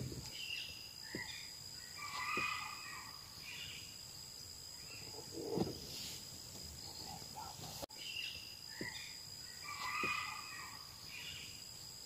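Forest evening ambience: a steady high insect drone with scattered bird calls and a few short low thumps. After a brief dropout about eight seconds in, the same stretch of calls repeats.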